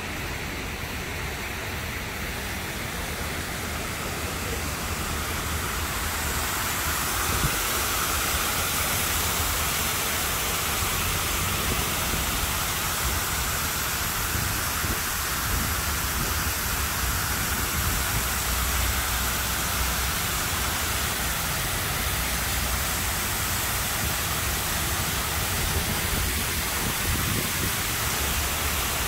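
Water from the 64-foot Waterwall fountain pouring down its wall and splashing into the pool at its base: a steady rushing that grows louder over the first several seconds, then holds.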